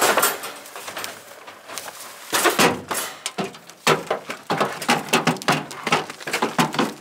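Goats clambering out of a wire pen in a pickup truck's bed: a busy run of knocks and rattles from hooves on the truck bed and the metal cage, thickest from about two seconds in.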